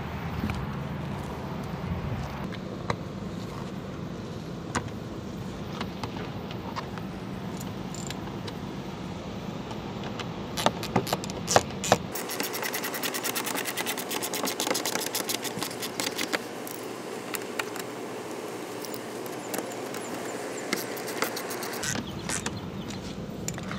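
Hand tools clicking and tapping as screws are driven back into the underside of a car's plastic front bumper, over a steady hum. About halfway through, the hum drops out and long runs of fast, fine clicks take over until near the end.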